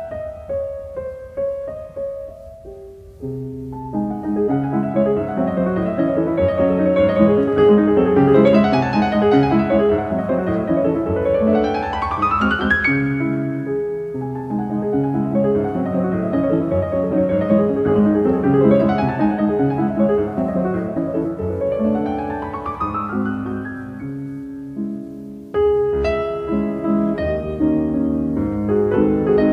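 Solo piano music playing many flowing notes, softer for the first few seconds, with a quick rising run about twelve seconds in and another about ten seconds later.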